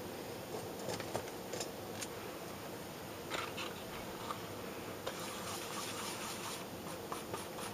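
A paintbrush stirring powdered milk paint and water in a foam bowl: a few light taps as the bowl is handled, then near the end a quick, scratchy run of brush strokes, several a second.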